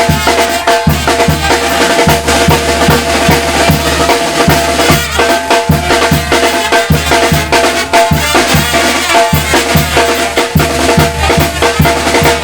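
Band music with a steady drum beat of bass drum and snare hits under held instrument notes. It cuts off abruptly at the end.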